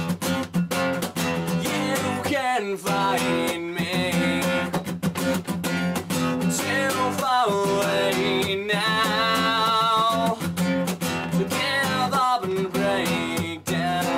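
Acoustic guitar strummed in a steady rhythm, its chords ringing under the strokes, in the closing bars of a song.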